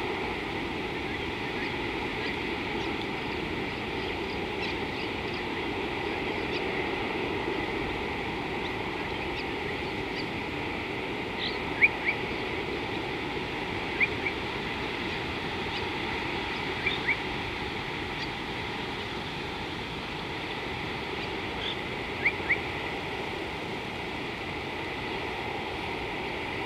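Steady rushing outdoor noise with short, high bird chirps rising above it several times, mostly in quick pairs.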